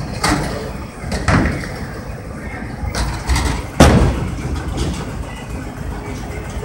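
Bowling alley din: a steady low rumble with several sharp knocks and thuds, the loudest a heavy thud about four seconds in as a bowling ball is released onto the lane.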